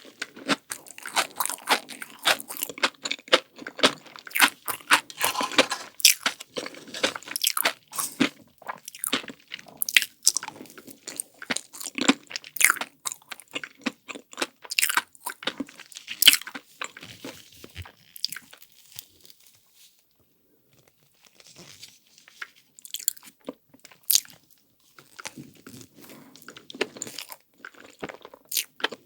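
Close-miked eating: crisp crunching and chewing as a chocolate-coated ice cream's shell cracks between the teeth, thick and fast at first, then a pause of a few seconds, then scattered bites again.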